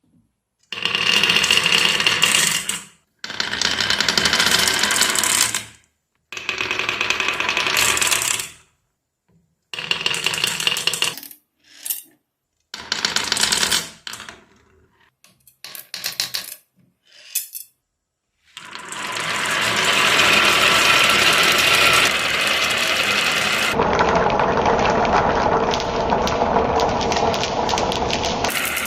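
Marbles rolling and rattling down rain-gutter and wooden-rail tracks, heard in a run of short bursts of about two seconds each that start and stop abruptly. From about two-thirds of the way in, the rolling runs on without a break.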